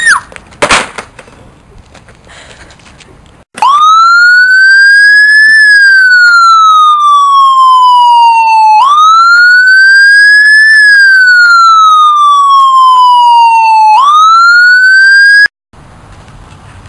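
Electronic police-style siren wailing, its pitch rising and then sliding slowly down in long cycles of about five seconds; it starts abruptly a few seconds in and cuts off suddenly near the end. A loud thump comes in the first second, before the siren.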